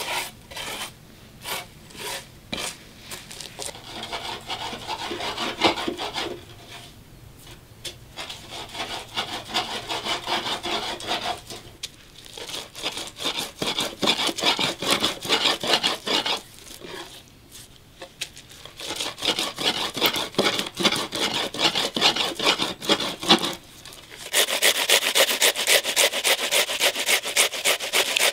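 Hands rubbing and kneading salted chopped greens against a glazed clay bowl, in bouts of quick scratchy strokes with short pauses. Near the end an onion is grated on a flat metal grater: a brighter, steady rasping run of rapid strokes.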